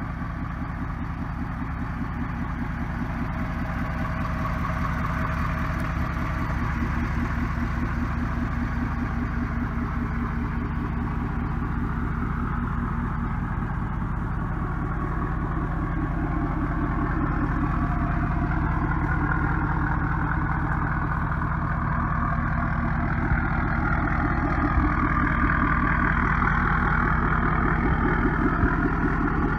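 A vehicle engine running steadily with an even, low pulsing, growing slightly louder toward the end.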